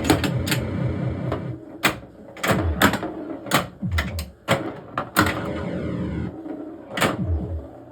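1979 Williams Gorgar pinball machine in play: sharp, irregular clacks of flippers and bumper solenoids over the machine's electronic sound effects, short tones falling in pitch again and again, with a longer falling sweep about five seconds in.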